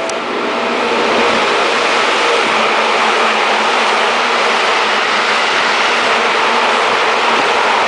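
Seibu Railway electric train passing through at speed: a loud, steady rush of wheels and running gear on the rails, building over the first second.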